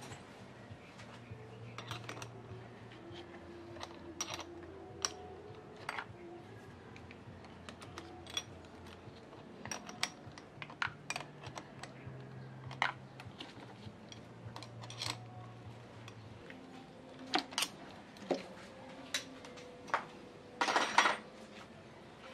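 Scattered light metallic clicks and taps of hand tools on battery-terminal hardware, coming closer together in the last few seconds, with a short rattling burst near the end. Soft background music with held low notes plays underneath and stops about two thirds of the way through.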